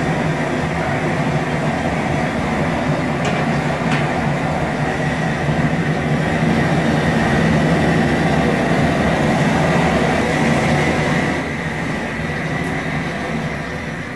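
Propane jet burner under a large boil pot, turned up high: a steady, loud rushing noise that drops somewhat in level near the end.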